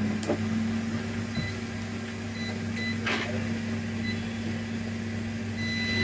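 A steady low electrical hum. Shortly before the end a multimeter's continuity beeper starts a steady high tone as the probe finds a dead short on the motherboard.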